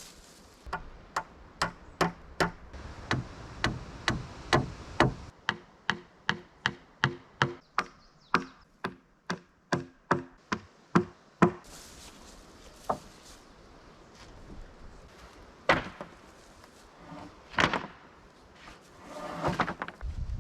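A hand tool striking wood in a fast, steady series of sharp blows, about two to three a second for roughly ten seconds, then a pause and three single blows a few seconds apart.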